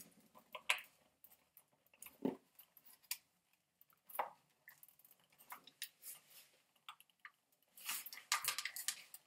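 Small clicks, knocks and scrapes of plastic parts as the motor block of an Arrma Granite 4x4 RC truck is worked loose from the chassis by hand, sticking because of dust. The sounds come now and then, and then there is a dense run of clicking and scraping near the end.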